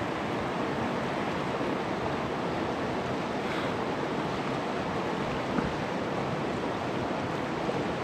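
Fast, shallow mountain river rushing over stones at a riffle, a steady even rush of water.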